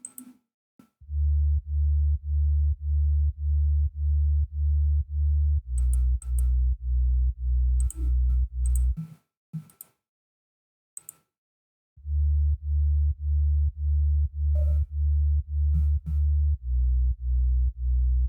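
Sine bass playing alone, a low pure tone pulsing about twice a second. The pumping comes from Kickstart 2 sidechain ducking, and the bass is EQ'd with its highs cut. Its note steps down partway through each phrase; it stops for about three seconds and then starts again.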